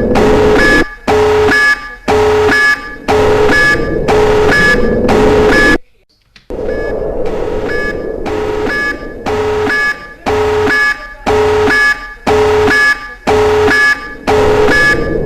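Nuclear alert alarm: a loud electronic alarm pulsing about once a second, each pulse a harsh two-tone blare. It drops out for about half a second around six seconds in, then resumes.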